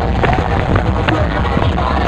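Loud electronic dance music with heavy bass, played through a large PA sound system with all its speakers running together for a sound check.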